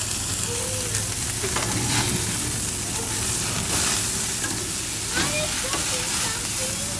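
Striploin steaks sizzling on a hot barbecue grill over open flames, a steady hiss, with a few short clicks as metal tongs lift them.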